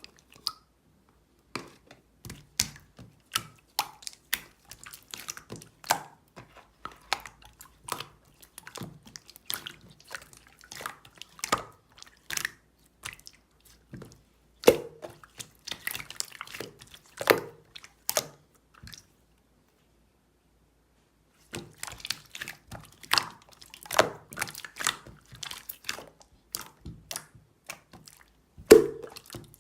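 A run of irregular short wet clicks and smacks, several a second, stopping for about two seconds roughly two-thirds of the way through.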